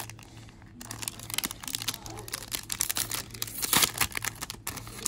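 A trading-card booster pack wrapper being torn open and crinkled, a dense run of rapid crackles that starts about a second in and stops shortly before the end.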